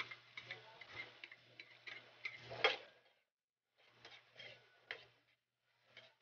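Kitchen utensils clicking and knocking irregularly during cooking, over a low steady hum. The loudest knock comes about two and a half seconds in, and the sound cuts out briefly twice.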